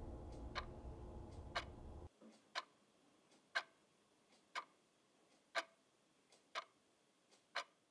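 A clock ticking, faint and even, once a second. A low steady drone under the first ticks cuts off abruptly about two seconds in.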